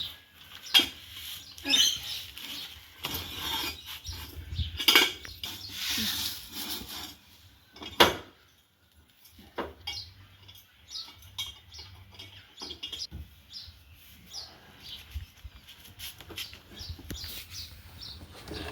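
Metal clanks, knocks and clicks from workshop gear being handled, busiest in the first half, with one loud clank about eight seconds in and lighter scattered ticks after it.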